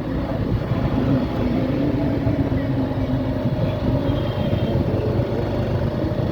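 Steady low rumble of a motor vehicle running on the road, engine and road noise, with a faint voice in the background.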